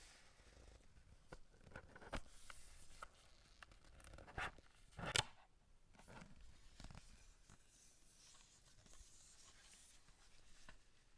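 Faint rustling and scraping of a phone box and its packaging being handled, with a few sharper clicks and knocks; the loudest is a short scrape about five seconds in.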